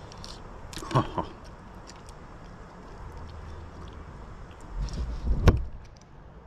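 Low wind rumble on the microphone outdoors, with two small clicks about a second in and a sharp knock over a low thump about five and a half seconds in, the loudest sound.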